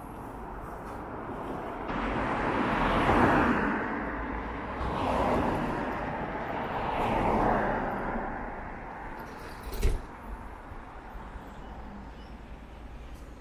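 Road traffic at a street crossing: three cars pass close by one after another, each a swell of tyre and engine noise that rises and fades. A short sharp knock follows shortly after the last one.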